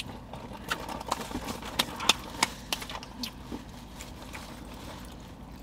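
Small, sharp clicks and smacks at irregular intervals, with a few more in the first half, over a low steady hum: the mouth and hand noises of someone eating a fast-food chicken sandwich and handling its wrapper.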